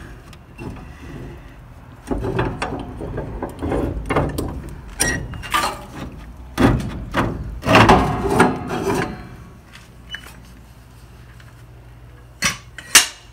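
Irregular metal clanks, knocks and scraping from tools and equipment being handled, busiest in the middle, then two sharp clanks near the end.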